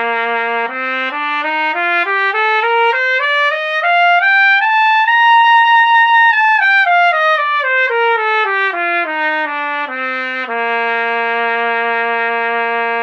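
Trumpet playing a two-octave C major scale: tongued notes step up one by one to a held top note, then come back down and end on a long, held low note. It is played as a resonance drill, with the sound imagined as starting far away to give a full, projected tone.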